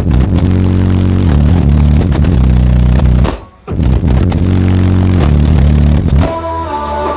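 Bass-heavy music played very loud through a car's subwoofer system of nine CT Sounds EXO subwoofers driven by three B2 Audio M1 amplifiers, the deep notes stepping from one pitch to the next. The bass cuts out briefly about three and a half seconds in, and near the end the low bass thins out for a passage with higher notes.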